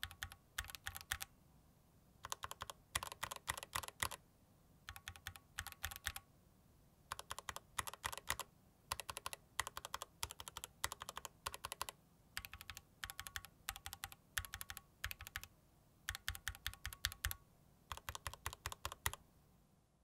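Mechanical keyboard being typed on: bursts of rapid clacking keystrokes, each run lasting about one to two seconds, separated by brief pauses.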